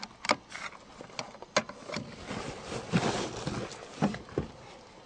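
Scattered clicks, taps and rustling from someone handling things inside an old car, getting a key ready for the ignition; no engine is running yet.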